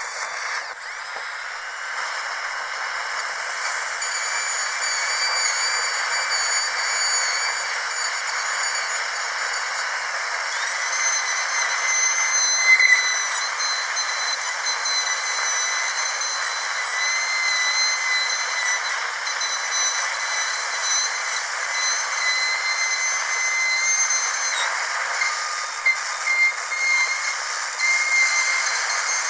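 Dental drill running continuously: a steady hiss with a thin, high-pitched whine over it that wavers in pitch now and then.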